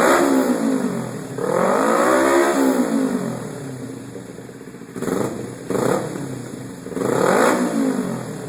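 Kawasaki Ninja 250R's parallel-twin engine revved through an aftermarket exhaust: a rev falling away at the start, a long rev rising and falling about two seconds in, two short throttle blips around the middle, and another rev near the end, dropping back towards idle between them.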